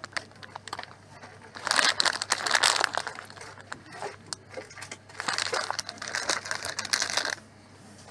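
Clear plastic bag of dried star anise crinkling as it is handled, in two bouts a second or two long, the second cutting off sharply.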